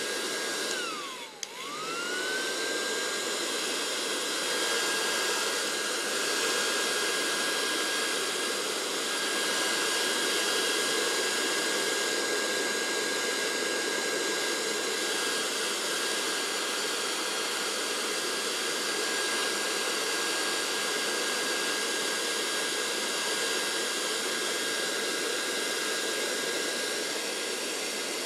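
Hair dryer running steadily, a blowing rush with a high motor whine. About a second in it briefly winds down and comes straight back up to speed, as if switched off and on again.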